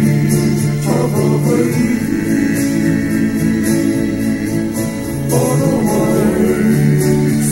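A man singing a song over a backing of held chords.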